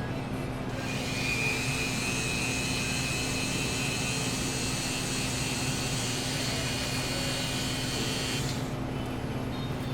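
A high-pitched whirring from a small motor starts about a second in, runs steadily for about eight seconds and cuts off, over a constant low electrical hum.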